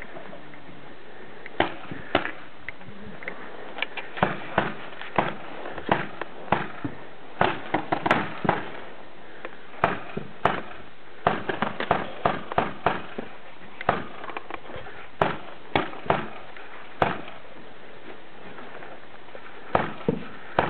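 Paintball markers firing: sharp pops in irregular single shots and quick runs of several, over a steady background hiss, with a quieter stretch near the end.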